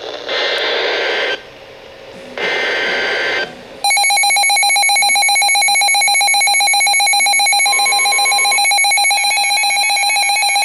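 Emergency Alert System SAME header: two harsh digital data bursts of about a second each, a second apart. From about four seconds in comes the loud, steady two-tone EAS attention signal.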